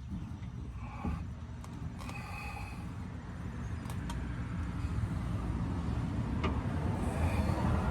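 Spare tire winch under a 2000 Dodge Dakota being cranked by hand to raise the spare, a low grinding rumble that grows louder, with a few sharp metallic clicks and short squeaks.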